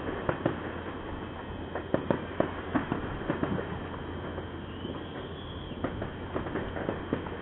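Distant New Year's fireworks: irregular sharp bangs and pops over a steady rumbling haze, with a faint short rising whistle about five seconds in.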